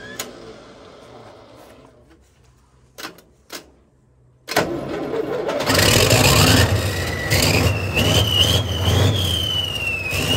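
Kirovets K-700 tractor's V8 diesel engine firing and catching about four and a half seconds in, after a few seconds of near quiet with a couple of knocks. It then runs loudly, with a whine that climbs in pitch over the next few seconds.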